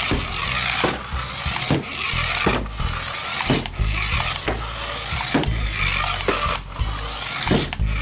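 A toy remote-control car's small electric motor and plastic gears whirring as it drives, over background music with a steady beat of about one stroke a second.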